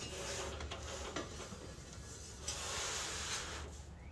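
Faint rustling and light clatter of hands and camera being moved around the engine bay, with a few soft clicks.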